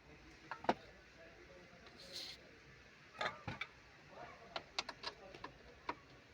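Scattered light clicks and taps of hand tools and parts being handled while working on a car's panoramic roof bolts, several close together in the second half, with a brief hiss about two seconds in.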